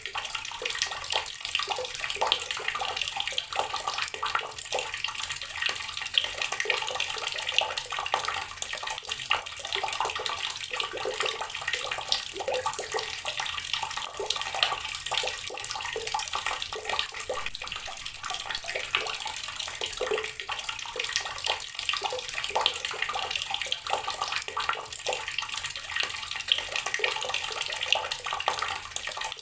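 Water from a tap pouring steadily onto rocks, a continuous splashing hiss with many small spatters.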